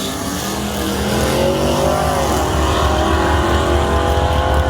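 A car engine accelerating hard. Its pitch rises, drops about two seconds in as it shifts up a gear, climbs again, and falls off near the end.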